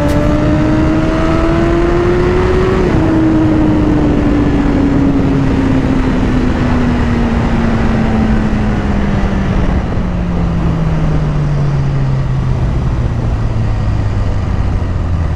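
Honda CBR1000RR inline-four sport bike running through a full titanium exhaust, its misfire now fixed. The engine pitch climbs for about three seconds, then falls steadily and slowly for the rest of the time as the bike slows, under heavy wind rush.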